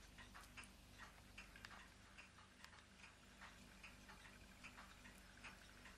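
Near silence: quiet room tone with faint, light ticks scattered through it, several a second.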